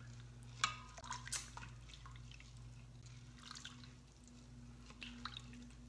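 Silicone spatula stirring a thin, milky rice pudding in a stainless steel Instant Pot insert: scattered soft wet clicks, squelches and light scrapes against the pot, over a low steady hum.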